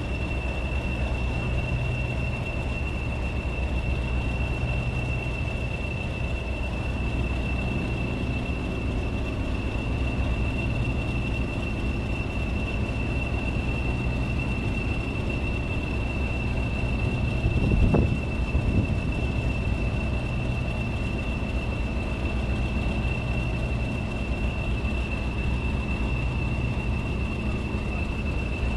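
Class 40 diesel locomotive idling, its English Electric engine giving a steady low rumble under the constant high turbocharger whistle that earns the class its 'Whistler' nickname. A single knock sounds about 18 seconds in.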